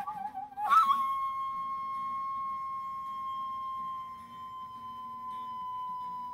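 Solo transverse flute: a short wavering note, then about a second in it leaps up to one long held note that sags slightly in pitch.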